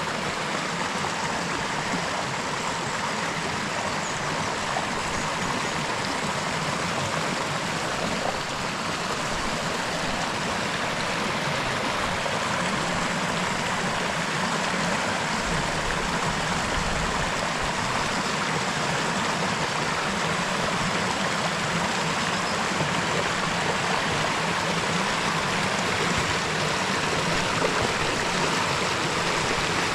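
Upland stream rushing and churning through boulders, a steady hiss of running water that grows slowly a little louder.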